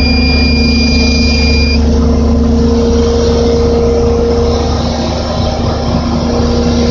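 Crane's engine and machinery running with a steady low hum. A solid, unbroken high alarm tone sounds until it cuts off about two seconds in. This is the crane's wind alarm, which signals wind over 30 mph.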